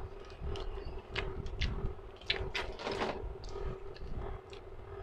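Close-up mouth sounds of someone eating spicy instant cup noodles: chewing with small wet clicks, and a louder breathy stretch about two and a half seconds in. A steady hum runs underneath.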